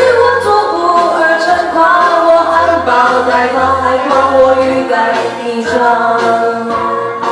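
A woman singing a Mandarin pop song into a karaoke microphone over a backing track.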